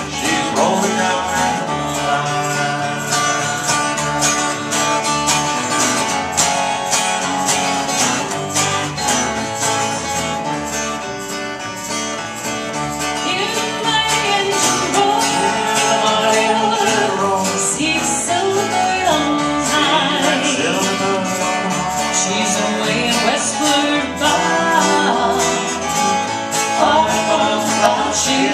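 Live acoustic folk music: acoustic guitar with electric bass guitar playing steady low notes underneath, and a voice singing over them from about halfway.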